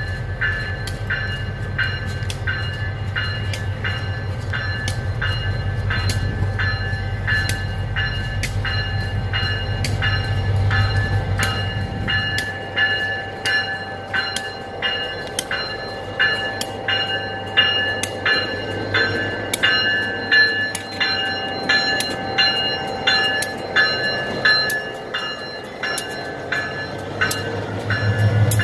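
Morristown & Erie diesel switcher locomotive creeping along street track with its bell ringing steadily, about two strokes a second. A low engine rumble is heavy in the first half, drops away, and returns near the end as the locomotive passes close by.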